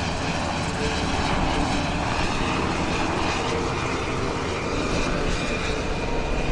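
Sikorsky UH-60 Black Hawk helicopter flying low and descending to land, its rotor beating fast and steadily over the sound of its twin turboshaft engines, with a faint steady high whine.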